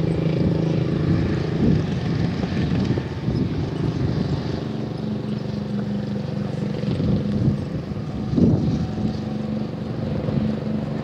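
Wind buffeting the microphone, with a steady low engine drone underneath that shifts slightly in pitch about halfway through.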